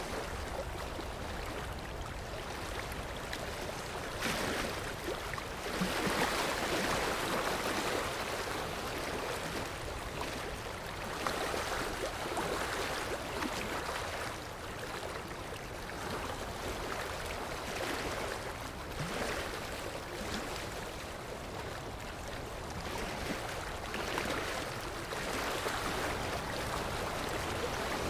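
Ocean waves washing ashore: a steady rush of surf that swells and recedes every several seconds.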